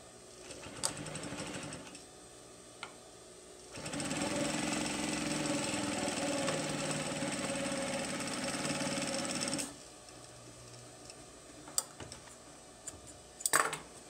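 Pfaff 463 industrial sewing machine stitching through fabric: a short run, then a steady run of about six seconds that stops abruptly. A few clicks and a rustle come near the end as the sewn fabric is lifted away.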